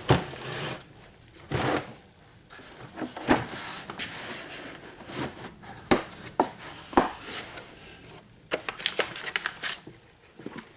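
Valve spring compressor being picked up and handled: irregular clicks and clunks of metal parts, about a dozen scattered knocks with short quiet gaps between.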